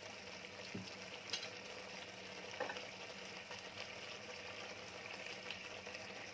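Thick onion-tomato masala gravy simmering in a wok, a steady faint sizzle and bubbling with a few soft pops.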